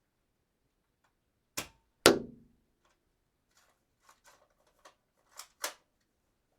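A gun sound effect: a sharp click, then a louder shot about half a second later with a short ring. Then comes a run of lighter mechanical clicks, with two sharper ones near the end, like a gun being cocked.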